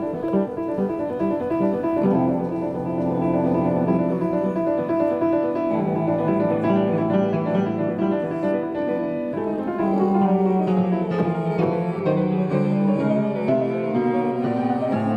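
Live instrumental music: a toccata played by two performers, with quick repeated notes and sustained chords.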